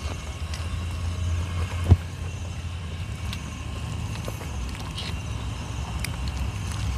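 Chewing and small crackles as a grilled fish is picked apart by hand, with a single sharp thump about two seconds in, over a steady low rumble.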